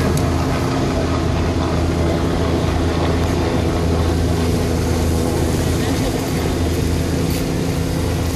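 A motor engine running steadily, a constant low drone that holds one pitch throughout.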